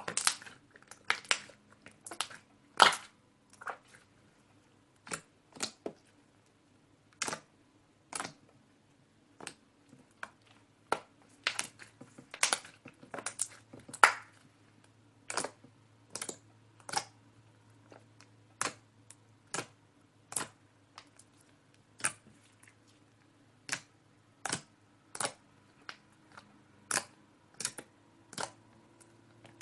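A large mixed ball of slime being pressed and folded by hand, making sharp clicking pops as air pockets in it burst. The pops come unevenly, about one or two a second, some much louder than others.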